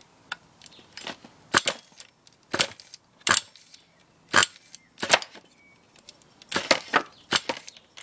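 Glow-fuel nitro engine of an Ansmann Virus 2.0 BigBlock RC buggy being cranked over to start, in about nine short sharp bursts roughly a second apart, sputtering without catching. The engine is being started for the first time and is not firing properly; the owner wonders whether it is hydraulic-locked.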